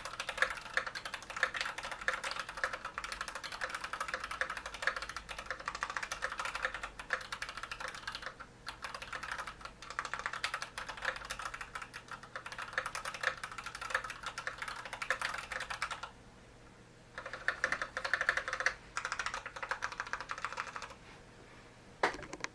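Fast typing on a KBD67 Mark 1 mechanical keyboard with unlubed, broken-in Cherry MX Red linear switches on a stainless steel plate in a bottom-mount case. The keystrokes run in quick, dense runs, with two short pauses near the end and one louder stroke at the very end.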